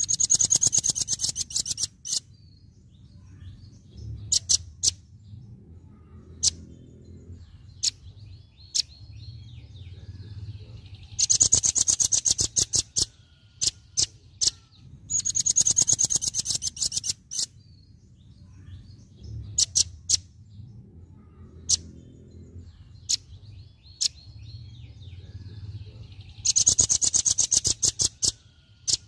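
Velvet-fronted nuthatch (rambatan paruh merah) singing its 'tembakan' rapid-fire song: four loud bursts of fast repeated very high notes, each about two seconds long, with single sharp high call notes between them.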